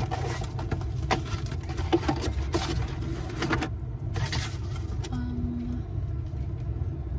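Toyota 4Runner heard from inside the cabin, moving slowly with a steady low rumble. Irregular clicks and knocks come through for the first four seconds or so, then the ride goes smoother, with a brief hum about five seconds in.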